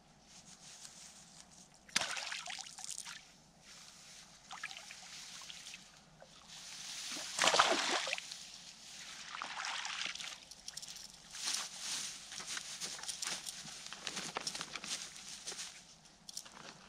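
Water sloshing and splashing as a hooked tench is played at the bank's edge and scooped into a landing net: irregular splashes, the loudest about halfway through.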